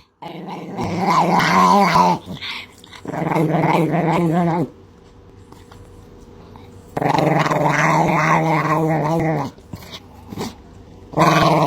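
A dog making long, pitched growling vocalizations in four bouts of about two seconds each, with short pauses between them.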